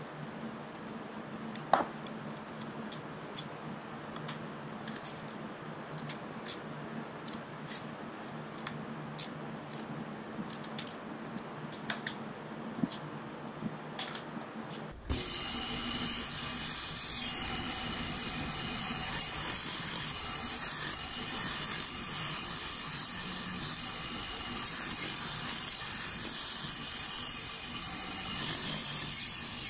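Scattered clicks of a ratchet wrench turning bolts on a Chevy T5 transmission. About halfway through this gives way to a band saw running steadily as it cuts through a thick aluminium plate.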